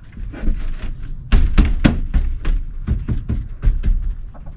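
Irregular knocks and thuds from work on the wooden frame of a chicken run, about a dozen hits at uneven intervals, the loudest about one and a half to two seconds in.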